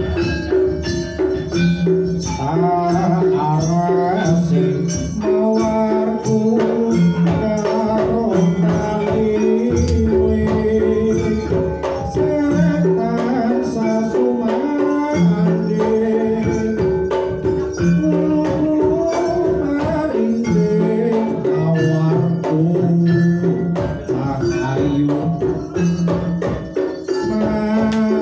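Live Javanese jaranan music: a traditional ensemble with barrel drums and a melody over a steady, driving beat.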